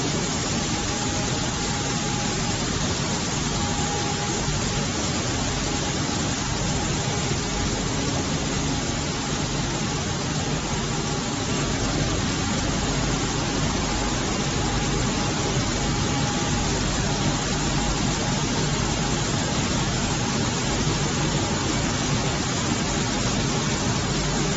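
Machinery of a maize flour milling plant running: a steady, even noise with a faint hum that comes and goes.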